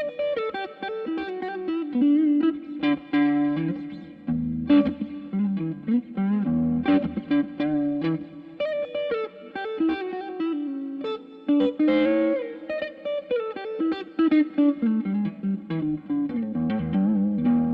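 Clifton Vintage Custom Stratocaster-style electric guitar played through an amp: a steady run of picked melodic lines and chords, with string bends about twelve seconds in.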